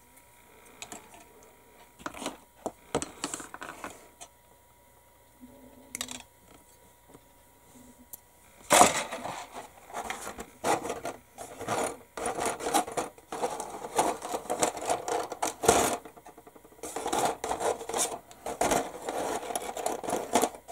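Old Airfix plastic kit sprues clicking and clattering against each other as they are handled and sorted through. The clicks are sparse at first and become a busy clatter from about nine seconds in, pausing briefly near the end.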